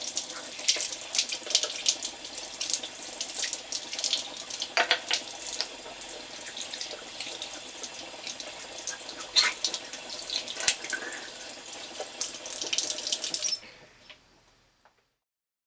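Bathroom sink tap running onto hands being washed, with the water splashing and slapping off the rubbing hands. The water stops near the end and it goes silent.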